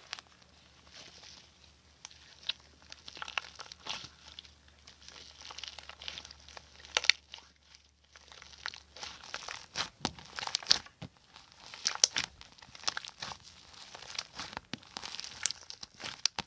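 Slime being kneaded and squeezed by hand, giving irregular crackles, clicks and squelching pops. It thins out briefly past the middle, then grows busier toward the end.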